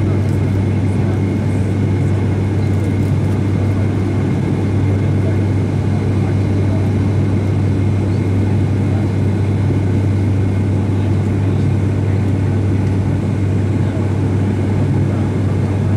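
Steady in-cabin drone of an ATR 72's twin turboprop engines and propellers during descent: a deep, even hum over a constant rushing noise.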